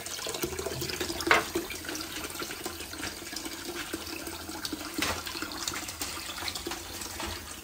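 Kitchen tap running steadily into a stainless-steel bowl of chicken pieces in a steel sink as the chicken is rinsed, with a couple of light knocks.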